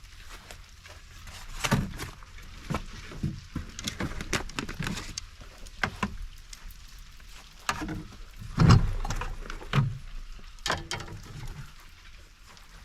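Close handling noise: irregular clicks and knocks with a few heavier thumps, the loudest about nine seconds in.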